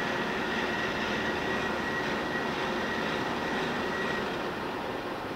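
Carriage of a 1984 TimeMaster Gurutzpe Super AT 4000/400 heavy gap-bed engine lathe running under power rapid traverse: a steady high whine over the machine's running drive. The whine stops about four seconds in, and the machine runs on.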